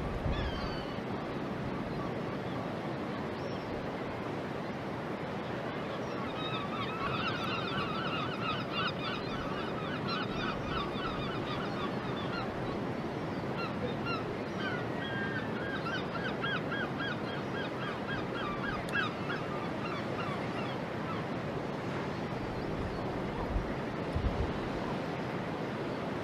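A bird calling in two long runs of rapid, repeated pitched notes, several a second, over a steady background of wind and water noise.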